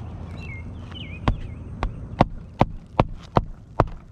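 Hammer driving a roofing nail into a shingle: a run of sharp strikes, about two to three a second, starting a little over a second in.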